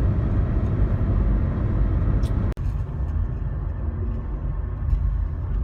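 Steady low rumble of a moving vehicle's road noise, briefly cut off about two and a half seconds in.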